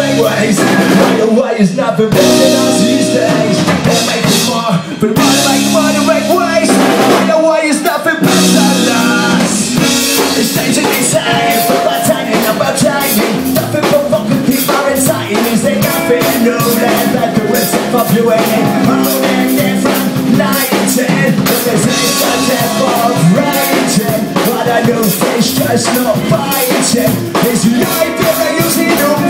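Ska-punk band playing live on electric guitar, bass guitar and drum kit in an instrumental passage. The first several seconds are loud stop-start hits with gaps between; from about ten seconds in the full band plays on steadily with a driving drum beat.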